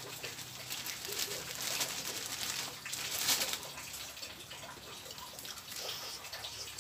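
Thin plastic bag crinkling and rustling as a large krupuk is pulled out of it, loudest about three seconds in. Steady rain hisses underneath.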